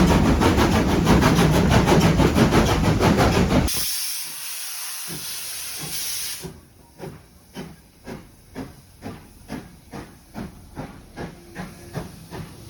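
Steam locomotive: loud running noise with a fast, even beat, then an abrupt switch to a hiss of steam, then quieter steady chuffing at about two beats a second.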